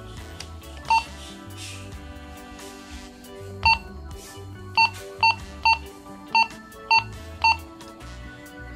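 Key beeps from a Motorola GM3188 mobile two-way radio as its channel buttons are pressed: eight short, identical high beeps, one about a second in and seven more in quick succession from about the middle on, each marking a channel change.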